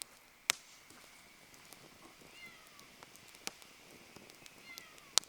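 Wood campfire crackling, with three sharp pops standing out: one about half a second in, one mid-way and the loudest near the end. A few faint short falling whistles come and go between the pops.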